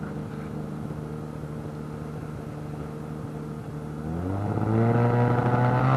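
Wag-Aero light aircraft's piston engine and propeller, heard from inside the cockpit, running at low power with a steady drone during the landing rollout. About four seconds in the throttle is opened and the engine note rises and grows louder, then holds at the higher power.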